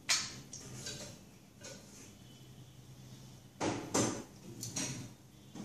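Toy train cars clacking as they are set down and pushed along a wooden train track: one knock near the start, then a cluster of short clacks about four to five seconds in.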